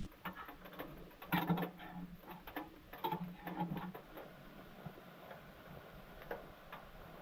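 Scattered small clicks and taps, irregular and denser in the first half, with a brief low hum twice.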